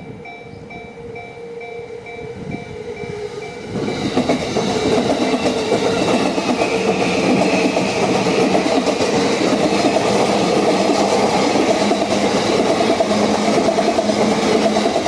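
Level-crossing warning bell ringing in even strokes, about two a second. About four seconds in, a Yamanote Line train passes close by, its wheels rumbling and clacking over the rails for about eleven seconds, with the bell going on under it.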